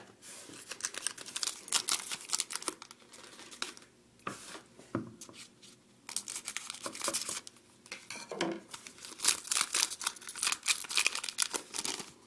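A trading-card pack's wrapper being torn open and crinkled by hand, in two spells of crackling with a pause of about two seconds between them.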